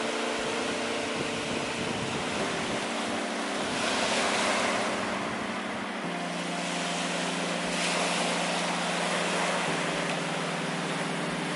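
Lake Superior surf breaking and washing up the beach in a steady rush, swelling louder about four seconds in and again near eight seconds.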